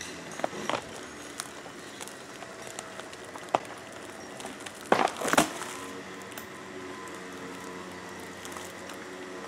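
Rotten pine trunk cracking under the pull of a truck winch's chain: a few sharp cracks in the first second and another a little past the middle, then a loud splintering break about five seconds in as the trunk gives way and falls.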